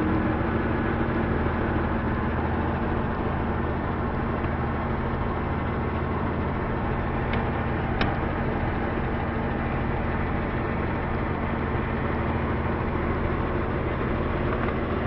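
Porsche 993 Carrera 4's air-cooled flat-six idling steadily, heard from inside the cabin. There is a single brief click about eight seconds in.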